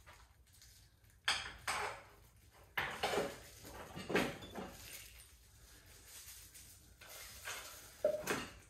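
Irregular metal clanks and clinks as a motorcycle front fork assembly, both fork tubes held in the lower triple tree, is handled and fitted up into the frame's steering head. The sharpest knocks come about a second in, around three and four seconds in, and again near the end.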